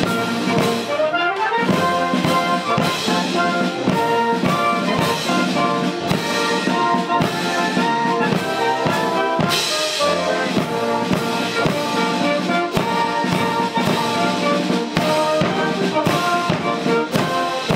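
Military brass band playing a march, with drums keeping the beat and a rising brass slide about a second in.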